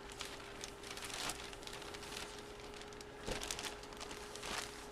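Faint rustling, crinkling and light clicks of trading cards and their packaging being handled, with a steady faint electrical hum underneath.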